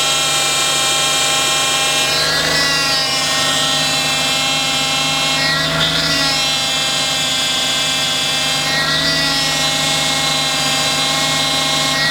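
Power steering pump whining loudly, a shrill stack of tones over the running engine, shifting in pitch about every three seconds as the steering wheel is turned back and forth. The noise comes with heavy steering, which the mechanic puts down to a damaged vane pump inside the power steering pump.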